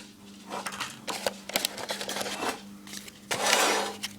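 Hands handling trading card packs from a metal collector's tin: scattered light clicks and rustles, then a louder rustle of under a second near the end. A steady low hum runs underneath.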